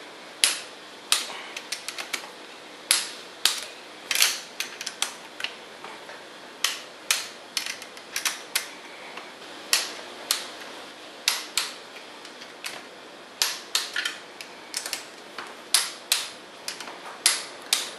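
Torque wrench ratcheting in short runs of sharp clicks as the connecting rod nuts are tightened down to 40 foot-pounds.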